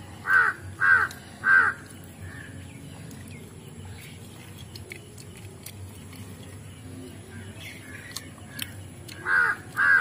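A crow cawing: three harsh caws in quick succession within the first two seconds, then two more near the end.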